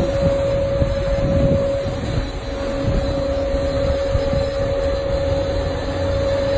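A steady, even hum held at one pitch, over a low rumble of wind buffeting the microphone.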